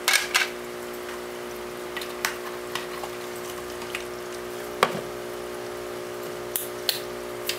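Spicy sauce bubbling in a frying pan of braised tofu, with scattered pops and spits over a steady hum. A single sharper knock about five seconds in.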